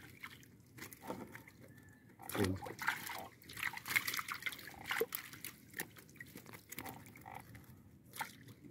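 Irregular small splashes and drips of water as a hand dip net scoops live fish out of a net pen.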